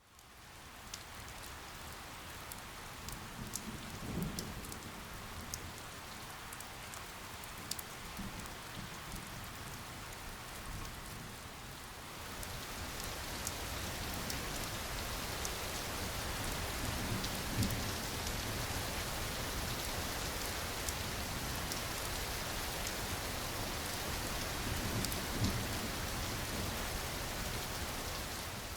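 Steady rain falling, with scattered drop ticks and a few soft low rumbles of distant thunder. The rain gets a little heavier about twelve seconds in.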